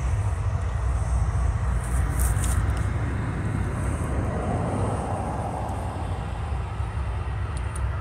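Ex-CSX GE Dash 8 diesel locomotive passing slowly with a grain train, its diesel engine running with a steady deep rumble. A few faint high clicks come about two seconds in and again near the end.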